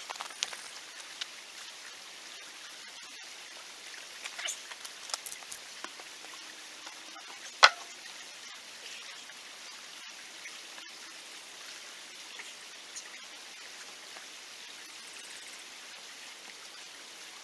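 Scattered crunches and clicks of loose rock shifting underfoot and under bags of concrete mix as they are stacked, with one sharp knock about seven and a half seconds in. A steady faint hiss runs underneath.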